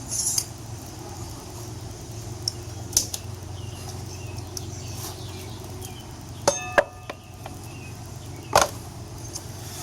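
A few scattered metal clinks and knocks of a steel axle and wheel being set onto a bearing-mounted static wheel-balancing jig. One clink, about six and a half seconds in, rings briefly. A low steady hum runs underneath.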